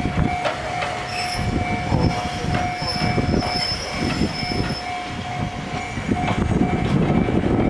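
Ichibata Electric Railway 3000 series electric train running through points, its wheels giving a steady high squeal over an irregular clatter on the rail joints and points.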